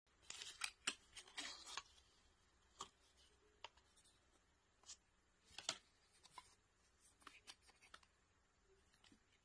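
Cardboard inserts of a phone box being handled: a burst of faint rustling and scraping in the first two seconds, then scattered light taps and clicks.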